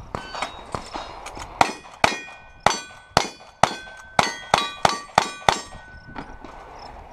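Rapid gunfire from a cowboy action shooting stage: a string of shots about two a second, each followed by the clang and ringing of a struck steel target.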